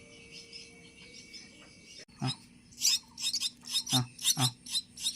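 Baby birds chirping: soft high chirps at first, then from about two seconds in loud, rapid, repeated shrill calls, the begging calls of nestlings waiting to be hand-fed. A few dull low thumps come between the calls.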